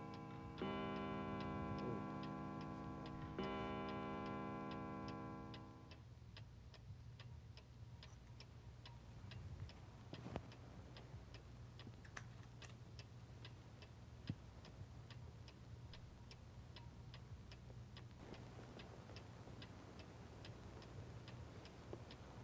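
A clock ticking steadily, about two ticks a second. For the first six seconds a held chord of background music sounds over it, then fades out.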